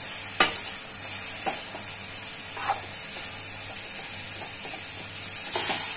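Shredded cabbage and green beans sizzling with a steady hiss in a kadai as they are stirred, a perforated steel ladle scraping and knocking against the pan a few times.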